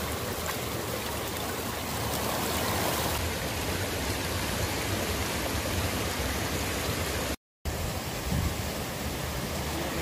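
Shallow, rocky mountain stream running over stones: a steady rush of water. The sound cuts out for a moment about seven and a half seconds in.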